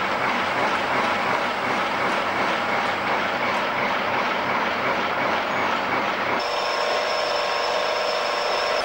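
Machine-shop noise: a pillar drill boring into a cast-iron valve body, a dense, steady clattering run. About six seconds in it changes abruptly to a metal lathe turning a cast part, a steady run with a high whine.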